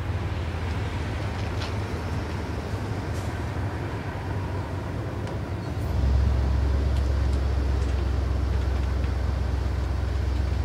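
Low, steady rumble of a passing Norfolk Southern train, growing louder about six seconds in.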